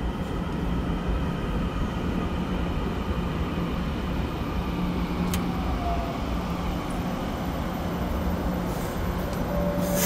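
TRA EMU900 electric multiple unit running in along an underground station platform: a steady rumble of wheels and traction equipment with a faint falling whine. A single sharp click comes about five seconds in.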